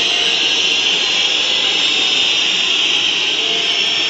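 Loud, steady din of a packed basketball arena crowd.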